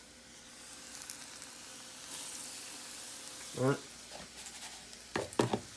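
Cornmeal-breaded squirrel legs sizzling in hot, shallow frying oil in a pan. The sizzle swells about a second in as a breaded piece goes into the oil. A few sharp knocks come near the end.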